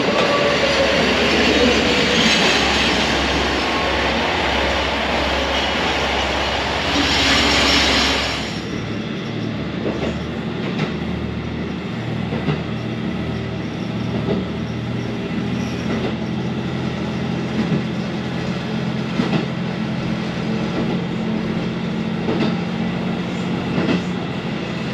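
KiHa 185 series diesel railcar arriving at a platform, engine and wheels loud for the first eight seconds or so. It then gives way to the quieter sound of riding aboard the running diesel train: a steady low engine drone with occasional clicks of the wheels over rail joints.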